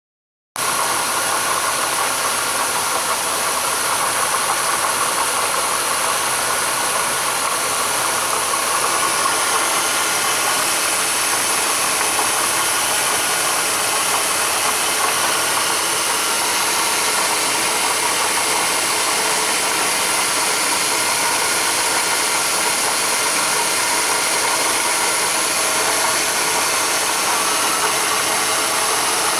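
Engine running at idle with a worn water pump bearing: a steady scraping, rattly noise with a few steady high tones over a bright hiss. It starts suddenly about half a second in.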